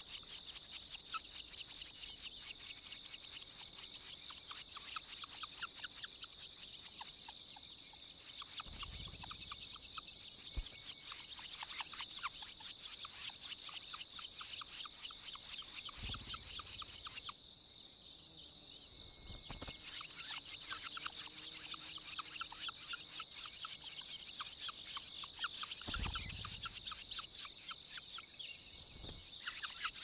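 Long-tailed shrike nestlings begging: a rapid, continuous chatter of short high calls that stops twice for a second or two, with a few low thumps.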